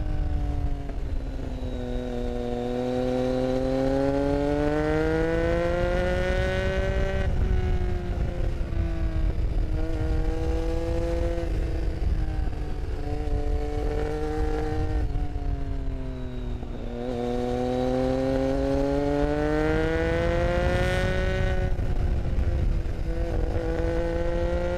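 Motorcycle engine heard from the rider's seat, its revs climbing and falling again and again as it pulls through the bends, with sharp drops between the long climbs. A steady low rumble of wind and road runs underneath.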